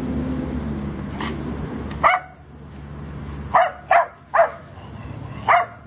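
A dog barking five times in short, sharp barks: one about two seconds in, three in quick succession a little later, and one more near the end.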